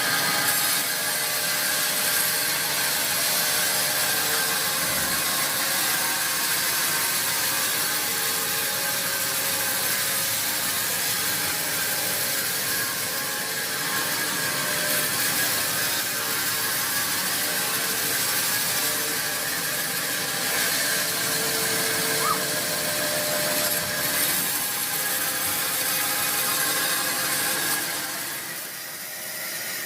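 A sawmill saw cutting steadily through a large, hard teak log, a continuous high-pitched sawing sound that eases off near the end.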